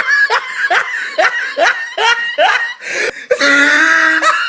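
A person laughing hard: a quick run of high-pitched falling 'ha' bursts, about three or four a second, then a long loud held laugh near the end.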